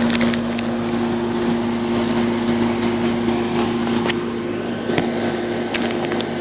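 Air-conditioning condensing unit running: a steady electrical hum from the compressor over steady fan noise, with a few light clicks of tool handling.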